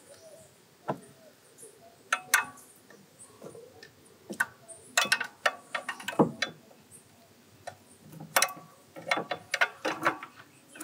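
Socket ratchet wrench on an extension clicking in short irregular bursts, with metal clinks of the tool against the parts, as a bracket bolt is undone.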